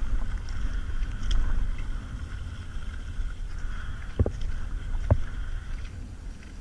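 Kayak paddling on calm water: a steady low rumble with the wash and splash of the paddle blade strokes. Two sharp knocks come about four and five seconds in.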